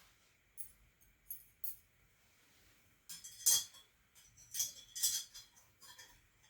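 Light, bright clinks and rattles of charcoal pieces and metal fire chopsticks being handled at a tea brazier while the fire is rebuilt: a few single clicks, then two bursts of clinking about three and five seconds in.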